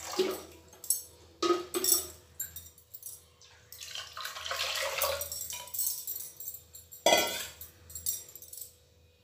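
Water poured from a steel bowl into a pressure cooker, with a run of splashing in the middle. A few sharp metal clinks of the bowl against the cooker, and one louder clank near the end.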